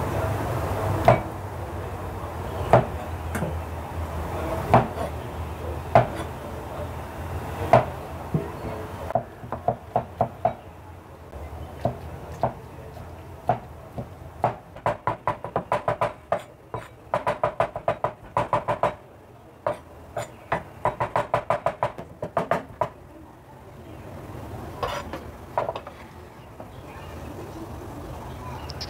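Cleaver blade striking a bamboo cutting board while soaked mushrooms are cut. First come single slicing strokes every second or two, over a low steady hum. From about nine seconds in, the mushrooms are minced in fast runs of several chops a second. Near the end only a few lighter knocks remain.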